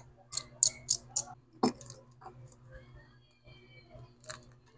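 Small sharp clicks and taps of hand tools working on a smartphone's opened internals: a quick run of four clicks in the first second, a louder knock a little later, and a single click near the end.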